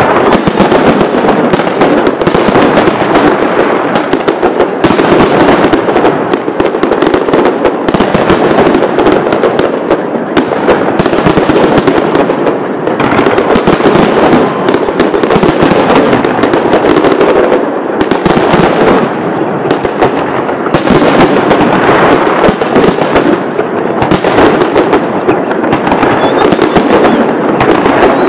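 Fireworks salute going off in a dense, unbroken barrage of bangs and crackles, loud throughout.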